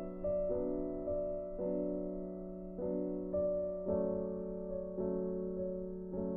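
Soft background piano music: slow sustained keyboard chords that change about once a second over a steady low note.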